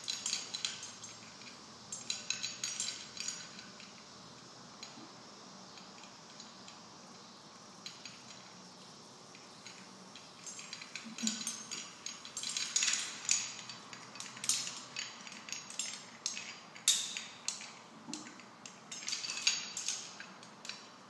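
Steel carabiners and rope-rescue hardware clinking and clicking in gloved hands while prusik cords are attached to the rigging. A few clinks near the start and again around two seconds in, a quiet stretch, then frequent sharp clinks through the second half.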